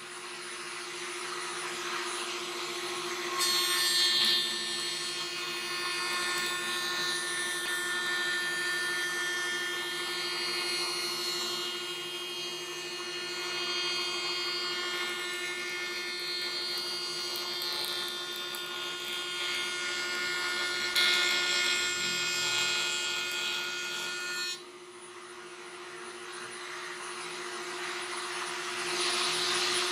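Table-mounted router with a flush-trim bit cutting a timber cot slat clamped in a template copy jig: a loud, even cutting noise from about three seconds in that stops abruptly about five seconds before the end. A steady machine hum runs underneath throughout.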